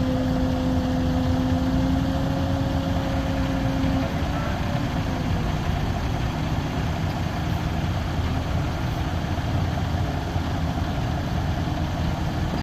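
Kenworth W990 semi truck's diesel engine running steadily. A steady hum over the engine noise fades out about four seconds in.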